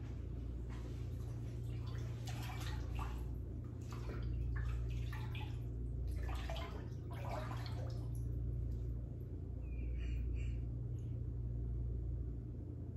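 Water sloshing and splashing in a small tank in irregular strokes, as a hand moves about in it, over a steady low hum.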